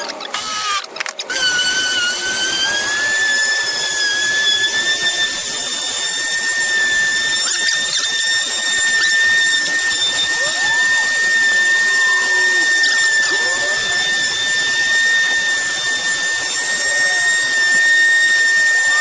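Handheld electric power tool switched on about a second in: its motor spins up with a high-pitched whine that rises a little, then runs steadily at one pitch.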